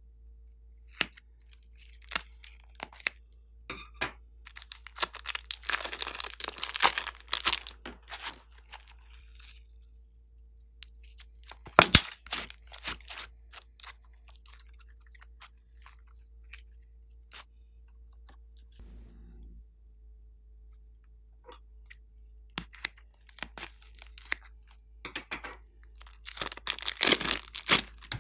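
Glossy slime being squeezed and stretched by hand, giving bursts of sticky crackling and popping, with a sharp click about twelve seconds in.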